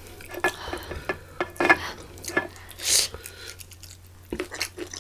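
Close-miked eating: wet chewing and mouth clicks as pieces of fried prawn and octopus are bitten and chewed, with light clinks against a dish. A brief crackly sound comes about three seconds in.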